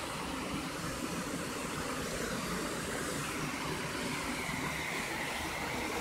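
Steady rush of a waterfall: falling water pouring onto rocks and into a pool.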